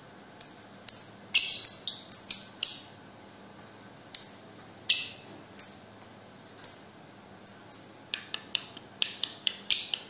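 Caged lovebird calling with shrill, falling chirps: a quick cluster at first, then single chirps about a second apart, then a fast run of short clipped chirps near the end.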